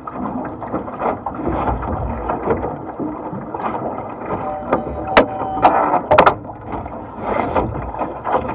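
Water rushing and splashing along the hull of a small single-handed racing dinghy sailing upwind, with wind buffeting the microphone. A few sharp knocks from the boat's gear come about five to six seconds in.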